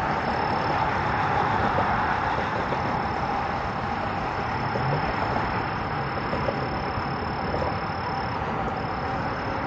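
A continuous high insect trill, briefly breaking off near the end, over a steady rushing background noise.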